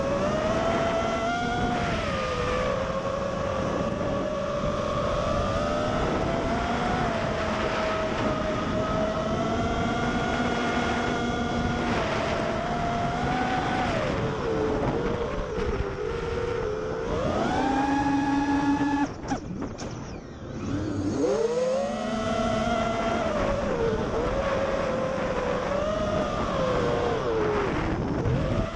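FPV quadcopter's motors and propellers whining, the pitch rising and falling with the throttle. About nineteen seconds in the throttle is cut briefly and the whine dips, then climbs back as power returns.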